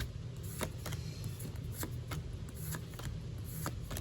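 Pokémon trading cards being slid and flipped through by hand, a string of short card clicks and snaps at uneven spacing, a few every second, as each card is moved to the back of the stack.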